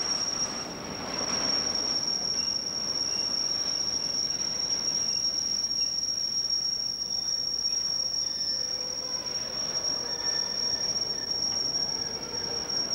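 Freight train of container and tank wagons rolling past behind two diesel locomotives, a steady rumble of wheels on rail with a high-pitched squeal held throughout.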